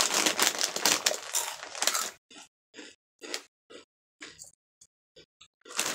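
Takis rolled tortilla chips being chewed: a dense run of crunching for about two seconds, then single crunches that come more slowly and fade.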